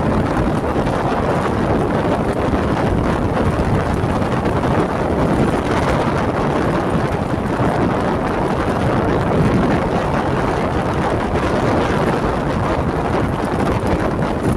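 Wind rushing over the microphone of a moving vehicle, a steady loud noise with the vehicle's road noise beneath it.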